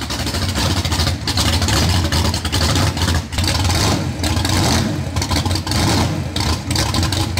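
Studebaker drag car's V8, fed by a tunnel ram with twin 850 double-pumper carburettors, running through open headers as the car pulls slowly forward.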